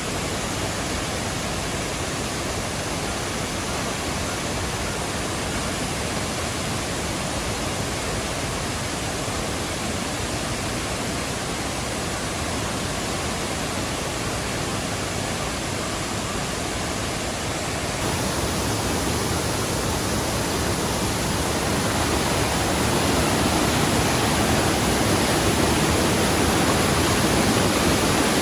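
Steady rushing of a waterfall, an even roar of falling water that grows louder about two-thirds of the way through.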